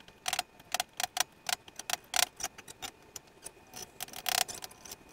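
Hammer blows on a threaded-rod punch driving a swing arm bearing's inner race out through its dust cap, each strike a sharp metallic ring, about three to four a second with a short pause past halfway. The blows knock out the dust seal and shift the race a little.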